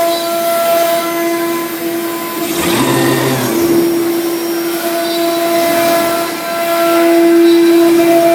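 Omnitech CNC router running: a steady high whine over a rushing hiss, with a louder burst of rushing noise about three seconds in.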